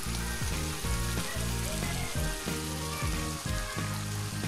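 Fish offal and roe sizzling as they fry in oil in a wok, being stirred with a spatula, over a background music track with steadily changing low notes.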